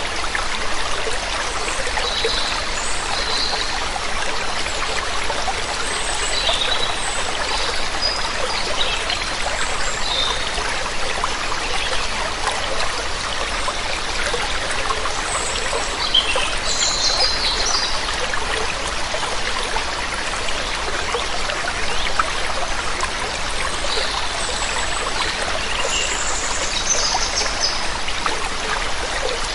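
Steady rushing water of a waterfall, with birds chirping in short calls scattered throughout, in small clusters.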